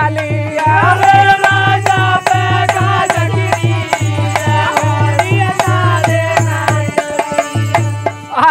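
Indian folk devotional singing: a male voice sings a wavering melody over a dholak keeping a steady beat, with sharp strokes of small hand cymbals. The low drum beat drops out briefly near the end.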